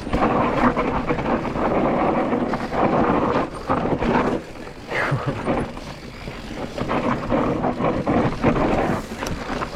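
Electric mountain bike tyres crunching and sliding over loose dirt and gravel on a descent, with the bike clattering over bumps and wind buffeting the microphone.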